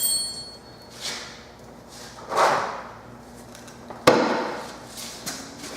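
Knocks and scraping as a Wacker Neuson jumping-jack rammer is handled and leaned back onto wooden boards. There is a sharp metallic clink with a brief ring at the start, two drawn-out scrapes, and the loudest hit, a heavy knock, about four seconds in.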